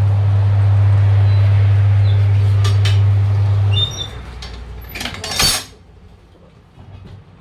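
A steady low electric-motor hum that cuts off about four seconds in, with metal tools clinking and knocking against each other during the tyre repair.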